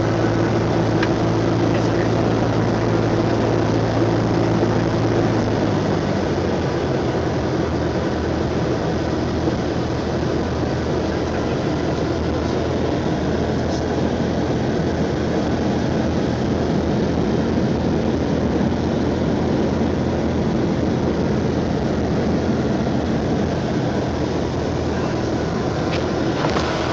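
Cessna 172's piston engine and propeller droning steadily, heard from inside the cabin. About six seconds in, the engine note steps down lower and then holds.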